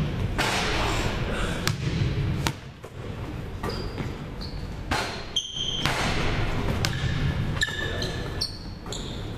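Basketballs bouncing on a hardwood gym floor during dribbling and passing drills, a run of irregular thuds, with short high squeaks several times.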